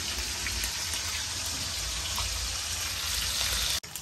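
Pieces of pork frying in hot oil in a frying pan, a steady sizzle with fine crackling. It breaks off for an instant near the end, then comes back with sharper spitting pops.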